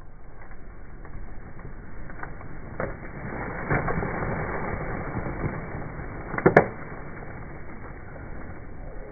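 Clear plastic bag full of litter rustling and crinkling as it is handled, with scattered sharp crackles, the loudest about six and a half seconds in.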